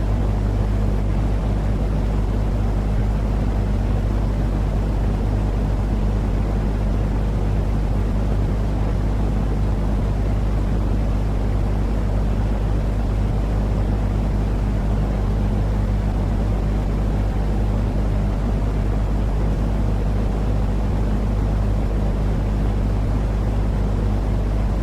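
Steady, unchanging white noise, heavy in the low end with a constant low rumble, from a sleep track that mixes white noise with soft cat purring.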